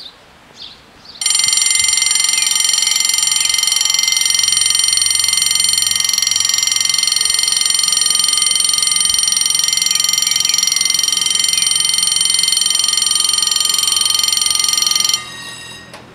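Level-crossing warning bells ringing loudly and rapidly, signalling an approaching train. They start about a second in and cut off about a second before the end, leaving a faint trace.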